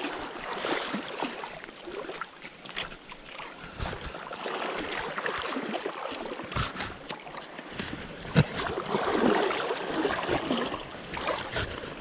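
Shallow creek water running and splashing around wading legs, with a few sharp clicks and knocks scattered through.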